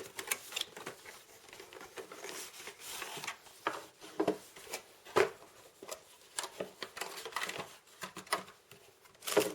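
A sealed cardboard product box being opened and its packaging handled: irregular scrapes, clicks and rustles, with sharper snaps about five seconds in and near the end.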